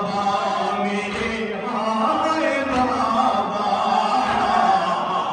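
Noha, a Shia mourning lament, chanted by male voices: a reciter with the gathered mourners joining in. A few faint thuds of hands striking chests (matam) come through.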